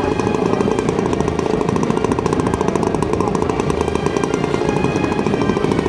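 Large-scale radio-controlled model airplane engine running steadily on the ground, a rapid even firing beat close by.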